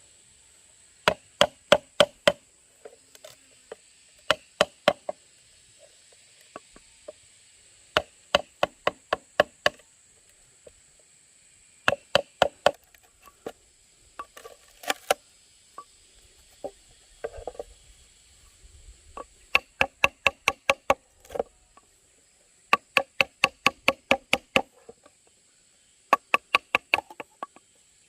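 Bamboo being struck with a tool in quick bursts of sharp knocks, four to eight blows at a time at about five a second, with short pauses between bursts.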